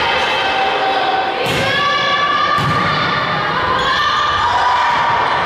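Volleyball serve and rally: two sharp hits on the ball about a second apart, the first about one and a half seconds in. Players and spectators shout and cheer throughout.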